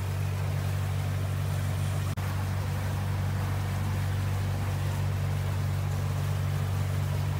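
A motorboat's engine running steadily under way, a constant low hum with the rush of water and wind over it, heard on board. It drops out for an instant about two seconds in.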